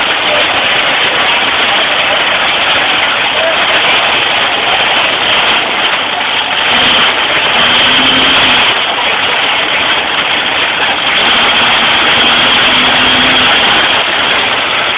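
1968 Chevy pickup's engine running hard under load as it pulls a sled down the dirt track, loud and steady, heard through a phone's microphone.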